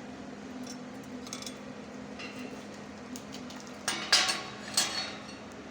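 Welded steel test plate being handled and broken apart: light metallic clinks, then a few sharp clanks of steel on steel about four seconds in.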